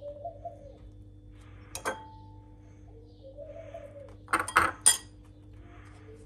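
Kitchen utensils and dishes clinking: one ringing clink about two seconds in, then a quick cluster of four sharp knocks and clinks a little past the middle, over a steady low hum. A bird coos softly in the background a couple of times.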